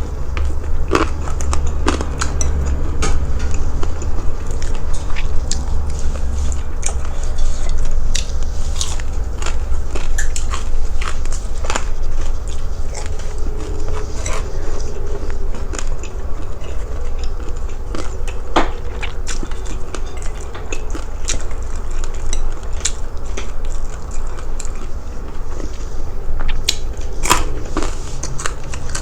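Close-miked biting and chewing of crispy fried pork skin and fat, with sharp crackling crunches scattered irregularly throughout, over a steady low hum.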